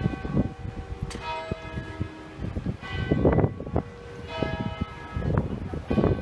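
Westminster Abbey's tower bells ringing, one strike after another at several different pitches, the tones overlapping into a continuous peal.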